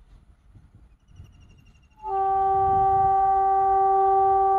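Indian Railways electric freight locomotive sounding its horn: one long, steady single-note blast that starts about two seconds in and holds, over the low rumble of the approaching train.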